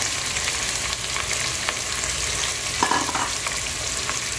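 Sliced onions sizzling in hot oil with whole spices in an aluminium pressure cooker, stirred with a wooden spoon, with small crackles and a brief knock about three seconds in.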